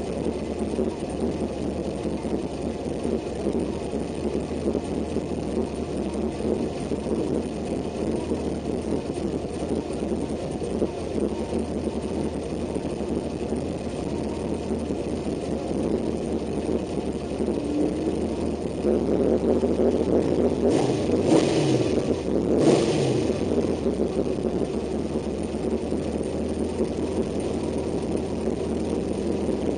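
Carbureted engine of an 89 Chevy S-10 drag truck idling, heard from inside its cab. About twenty seconds in, the engine noise swells for a few seconds with a brief rushing noise on top, then settles back.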